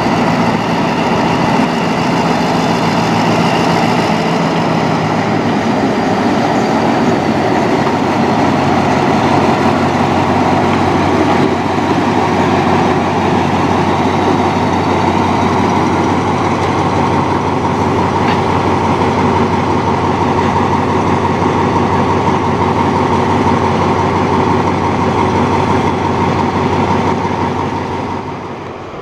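Diesel train engine running steadily, with its level engine note holding, then falling away near the end.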